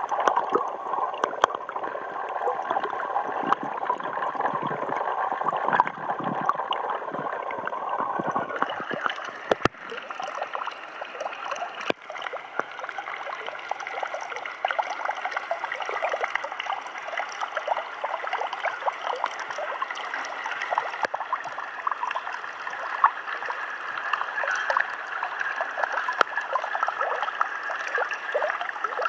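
Water in a trout rearing tank. It is muffled and gurgling at first, with the microphone underwater. After about nine seconds it turns into a brighter, steady trickling flow of water, heard from above the surface.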